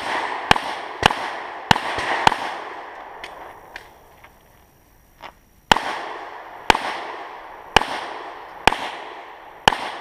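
A competition handgun fired in a stage string: five shots in quick succession over the first two and a half seconds, a pause of about three seconds, then five more shots about one second apart. Each report is followed by a short decaying tail.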